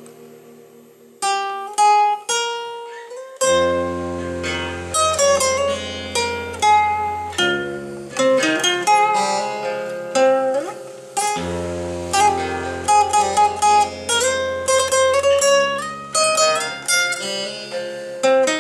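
Instrumental music on a plucked-string sound, guitar-like: a chord dies away, single notes enter about a second in, and from about three and a half seconds a melody of quickly decaying plucked notes plays over steady held bass notes.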